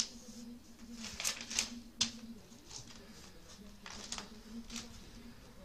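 Pages of spiral notebooks being flipped and pressed together by hand: a series of short, crisp paper rustles and flaps, about five in all, with gaps between them.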